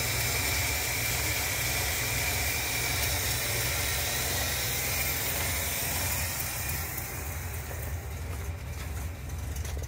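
1964 Chevrolet C20's cammed 292 inline-six idling steadily under the open hood, with a steady hiss over it. Near the end the engine is a little fainter and footsteps crunch on snow.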